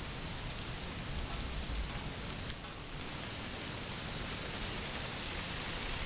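Distant waterfall making a steady rushing hiss, with one faint click about two and a half seconds in.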